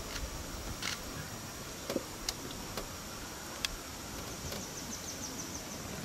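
Dry-forest ambience: a steady high insect drone over a background hiss, a few sharp clicks scattered through, and a bird giving a quick run of high chirps about four and a half seconds in.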